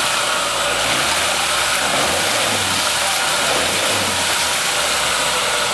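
Off-road 4x4's engine running on a steep muddy slope, its note rising and falling a few times as it is revved lightly, over a steady hiss.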